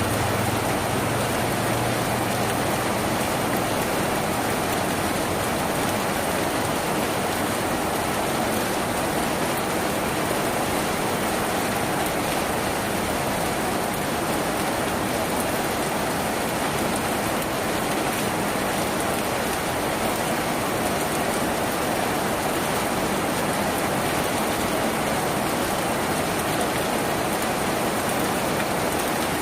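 Steady rain drumming on a tin roof, an even wash of drops that keeps up without a break.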